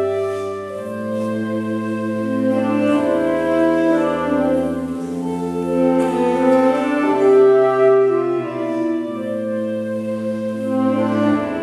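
Saxophone quartet (soprano, alto, tenor and baritone saxophones) playing slow chords in a church, each chord held a second or more before the voices move together to the next.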